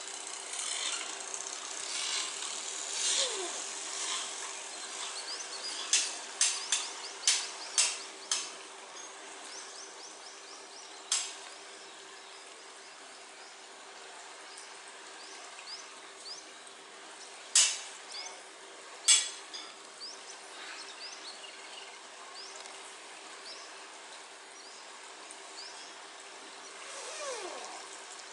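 Sharp clicks: a quick run of five, then three more spaced apart later, over a steady low hum and faint high chirping in the background.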